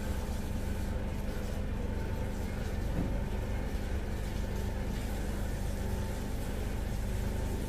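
Steady low mechanical hum with a faint constant tone above it, unchanging throughout.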